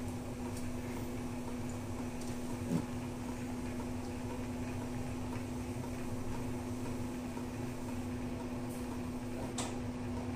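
Steady low machine hum from a running kitchen appliance or fan. A light knock about three seconds in, and a short click near the end.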